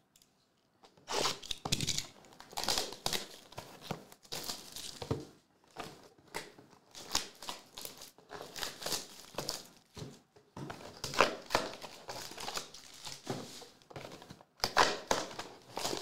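Plastic shrink wrap being torn and crinkled off a sealed box of trading cards, starting about a second in as a long run of irregular ripping and crackling bursts with short pauses.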